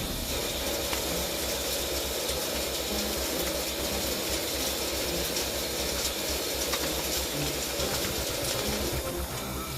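CNC lathe running, a steady hiss over continuous mechanical machine noise.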